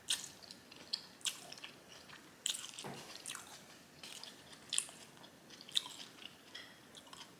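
A person chewing a mouthful of beef japchae, sweet-potato glass noodles with onions. Irregular wet mouth smacks and crunches come every second or so.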